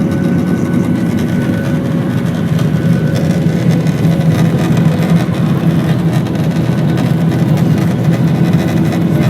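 Airliner engines running at high power during takeoff: a loud, steady low drone, with a faint whine that fades out in the first few seconds.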